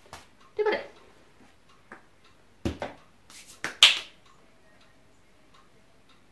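A black plastic plant pot set down on the floor with a thump, then soil-covered hands clapped and brushed together a few times to knock the potting soil off, the last clap the loudest.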